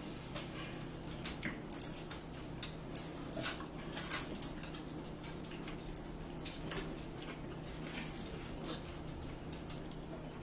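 Eating at a table: scattered small clicks and smacks from chewing mouths and a fork on a plate, over a steady low hum.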